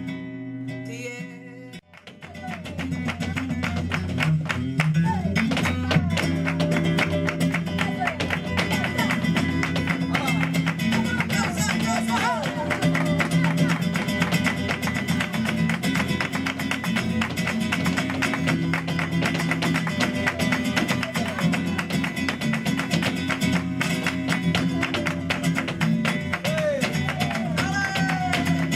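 Flamenco guitar playing a soleá, with dense sharp percussive strikes over it. The music drops away briefly just before two seconds in, then resumes.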